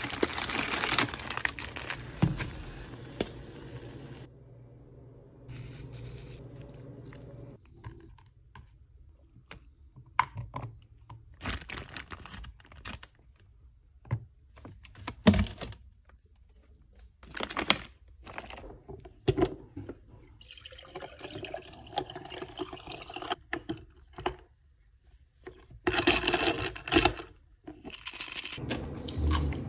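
A run of close-up food-prep sounds: a plastic noodle packet crinkling, short clicks and taps of metal chopsticks on a plastic plate, liquid poured into a glass with a rising pitch as it fills, and ice knocking in a glass near the end.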